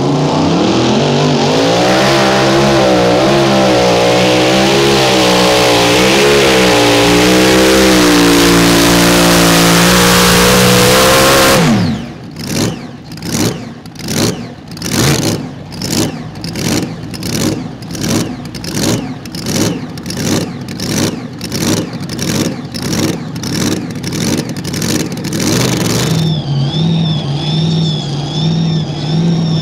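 Mini rod pulling tractor engine running flat out under load down the track, its pitch wavering with the revs. After about twelve seconds it drops off suddenly into a pulsing sound, a little under two pulses a second. Near the end it settles into a steadier engine sound with a high, wavering whine.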